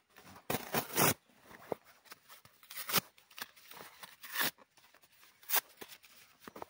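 Irregular crunching and rustling of dry twigs and forest litter, with the loudest crunches about half a second in and a few more later.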